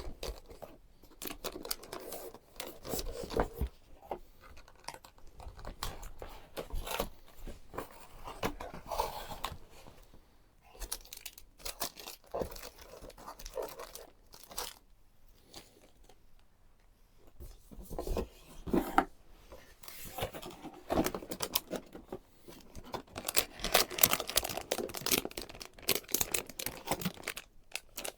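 Packaging being torn open and handled, with tearing, crinkling and rustling in irregular bursts.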